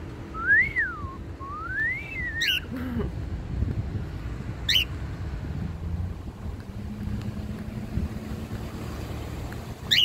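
Cockatiel chirping sharply a few times, over a low steady rumble. Near the start come two smooth whistles, each rising and then falling in pitch.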